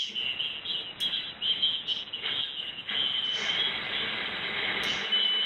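Audio from a Flex 6300 software-defined radio receiver as it is tuned across the band: steady band hiss with high whistling carrier tones, all cut off sharply above about 4 kHz by the receiver's passband. A few sharp clicks sound over it.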